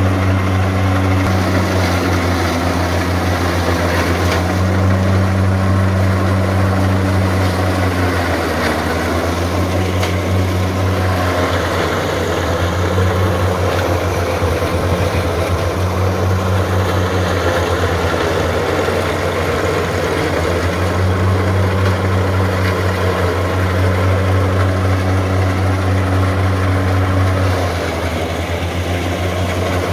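Valmet tractor's diesel engine running steadily while driving a PTO forage chopper that is grinding dry corn stalks. From about 8 to 21 seconds in, the engine note wavers and the chopping noise grows louder as the machine takes a heavier feed of stalks.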